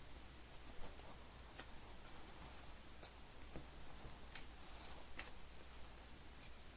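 Baseball cards being flipped through by hand: faint, irregular soft clicks and flicks, about one or two a second, over a steady low hum.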